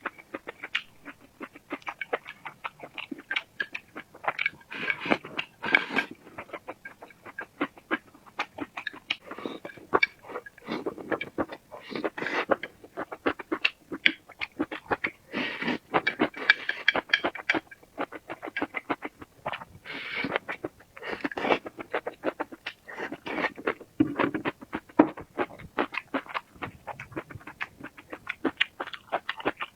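Close-miked eating sounds: a rapid, continuous run of wet mouth clicks and smacking from chewing, coming in louder clusters every few seconds.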